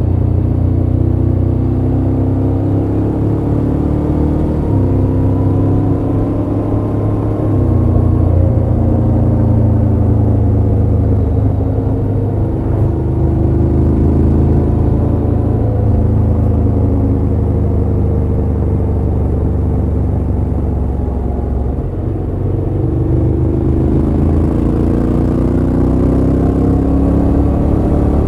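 Motorcycle engine and exhaust under way, the engine note climbing under acceleration and dropping back at each gear change, several times over, over a steady low road rumble.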